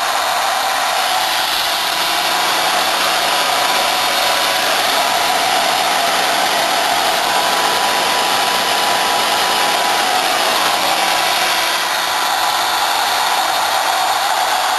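CNC machine running: a steady, loud hiss with a faint high whine.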